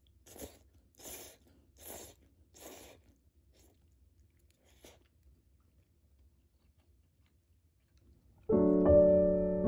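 Udon noodles being slurped, four quick slurps in a row, followed by a single light click. Gentle piano music comes in near the end.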